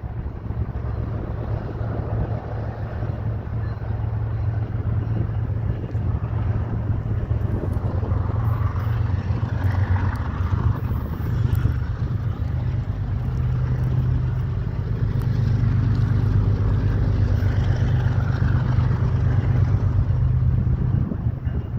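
BNSF freight locomotive diesel engines rumbling with a steady low drone that grows louder over the stretch.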